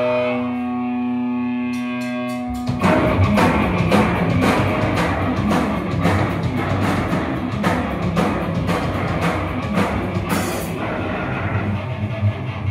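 Live hardcore band: a held distorted guitar note rings out, a few quick clicks follow, and about two and a half seconds in the full band crashes in with distorted guitars and fast drumming.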